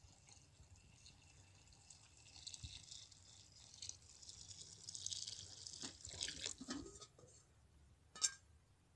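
Water pouring from a metal kettle into a metal pot, a splashing stream that grows louder and stops about seven seconds in. A single sharp clink near the end.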